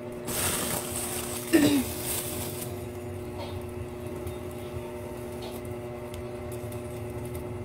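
Plastic bag rustling and crinkling for about two seconds near the start, with one brief louder sound partway through, over a steady low hum. After that come only faint handling clicks as malunggay (moringa) leaves are stripped from their stems into a bowl.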